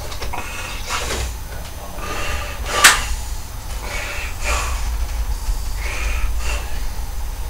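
Scattered rustling and handling noises with one sharp click about three seconds in, over a steady low hum.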